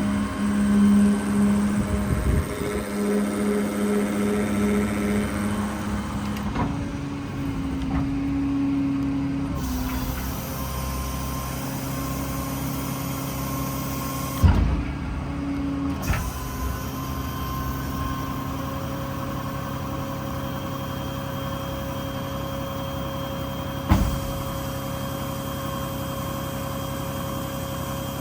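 Ram 5500's Cummins diesel running with the crane's hydraulic system working, a steady hum that shifts in pitch several times as crane functions are engaged and released, with a couple of short knocks.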